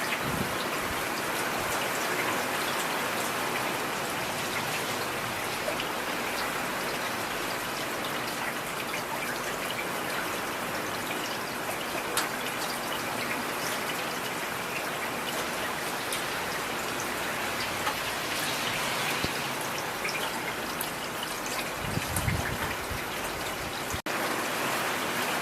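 Heavy rain falling steadily, with single drops ticking sharply through it, and a brief low rumble about three seconds before the end.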